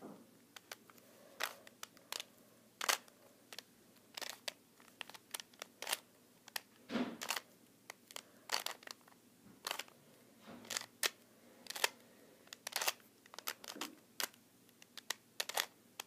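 Plastic 2x2 Rubik's cube being turned by hand, its layers clicking as they snap into place. The clicks are sharp and irregular, about two a second, as the solving algorithm is run through move by move.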